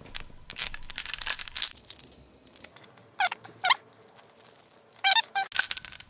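Small screws being driven with a small screwdriver to fix metal mounting rails onto a laptop SSD: a run of light metallic clicks and ticks, then a few short, high squeaks near the middle and one wavering squeak near the end.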